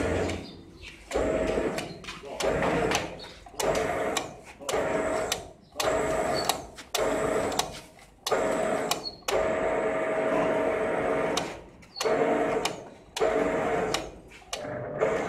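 Motor of a fertilizer bag packaging machine running in short repeated bursts, about one a second, each a steady hum that starts suddenly and fades away, with one longer run of about two seconds past the middle.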